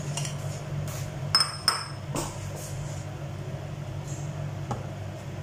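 A kitchen knife being handled at a cutting board: two quick metallic clinks with a brief ring about a second and a half in, then a few soft knocks, over a steady low hum.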